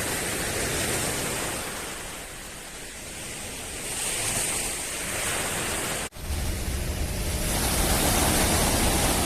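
Small sea waves washing on the shore, the wash swelling and easing, with wind on the microphone. About six seconds in the sound cuts out for an instant and comes back with a stronger low wind rumble.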